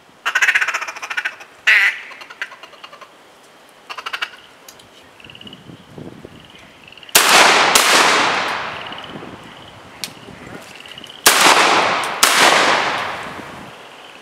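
A duck call blown in quick quacking runs in the first few seconds, then four shotgun shots in two quick pairs about four seconds apart, each trailing off slowly across the pond.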